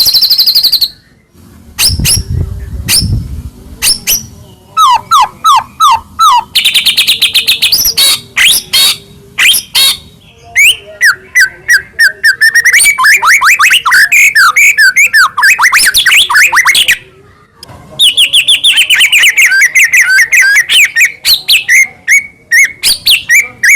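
White-rumped shama (murai batu) in full song: loud, rapid, ever-changing phrases of chirps, fast rattles, sweeping whistles and descending trills, with a brief pause a little after halfway. A low rumble sits under the song about two seconds in.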